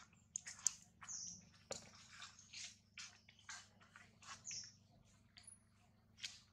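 Faint, irregular clicks and smacks from macaques grooming at close range, about two or three a second, with two brief high squeaks, one about a second in and one past the middle.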